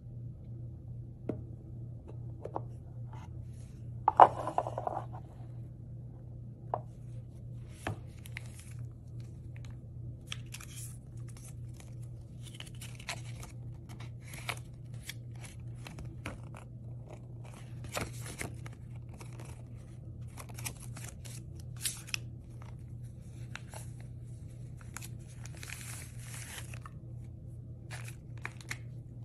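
Hands opening a cardboard sunglasses box and handling its paper card and cloth wrappings: scattered taps, scrapes and paper rustles, with a louder knock about four seconds in, over a steady low hum.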